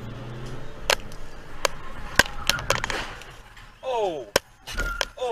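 A motorcycle crashing into a car and going down on the road: a run of sharp knocks and clatters in the first three seconds. Near the end come two short shouts that fall in pitch.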